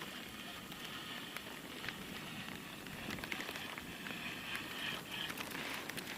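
Rain pattering steadily on a nearby surface, with many small irregular crackling ticks of drops.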